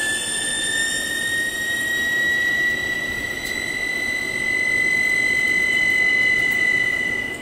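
CNC lathe machining a 4140 steel head stud with its door open: a loud, steady high-pitched squeal that rises slightly in pitch and cuts off near the end, over the low running noise of the machine.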